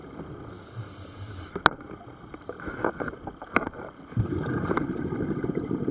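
Scuba diver breathing through a regulator underwater: a hissing inhalation early on, then a long burble of exhaled bubbles starting about four seconds in. A few sharp clicks are heard along the way.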